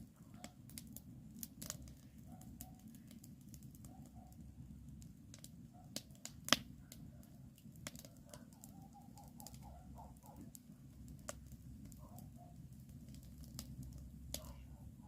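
Wood campfire crackling, with irregular sharp snaps and pops and one louder pop about six and a half seconds in, over a steady low rumble.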